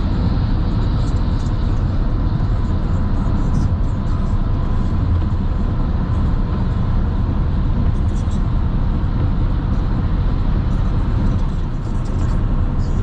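Steady road noise of a car driving at highway speed: a constant low rumble from the tyres and engine, even in level throughout.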